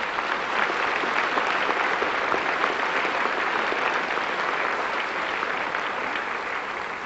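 Large audience applauding: dense, steady clapping from many people that thins out near the end.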